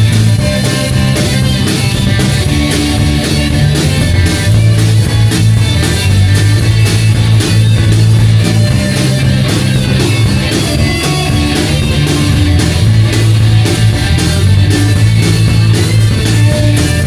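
Rock band playing loud, with guitar over held bass notes and drums keeping a steady beat.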